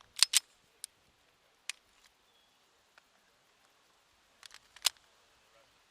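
Sharp metallic clicks of a pistol being loaded and made ready: a magazine seated and the slide worked, as a close pair of clicks near the start, single clicks after, and a louder cluster near the end.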